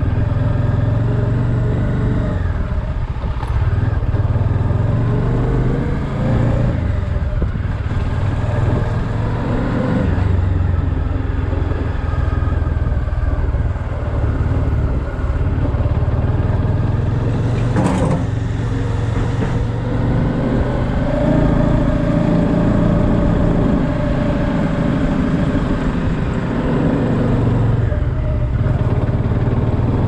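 Bajaj Dominar 400's single-cylinder engine running under way, its pitch rising and falling with the throttle. One sharp click a little past halfway.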